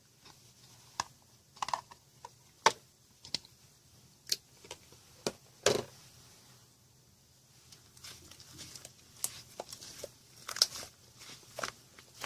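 Clear slime being squeezed and stretched by hand, giving irregular sharp clicks and pops, with a short lull partway through and quicker clicking after it.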